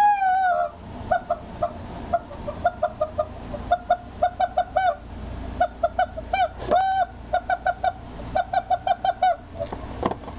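Rubber chicken toy squawking as it is squeezed: one long squawk at the start, then many short squawks in quick runs of three to five, with another longer squawk about two-thirds of the way through.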